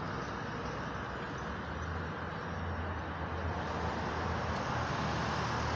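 Steady road traffic noise from cars passing on a wide multi-lane road below, a hum of engines and tyres with a low rumble that swells about halfway through.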